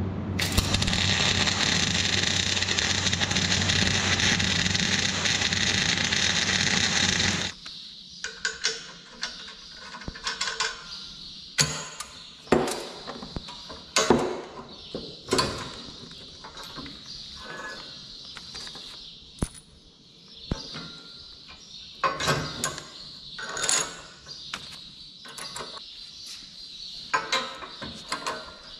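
A welding arc crackles steadily for about seven seconds, then cuts off. After that come scattered sharp metallic clicks and clanks as the steel latch lever, spring and locking pins of a Euro quick-hitch interface are fitted and worked by hand.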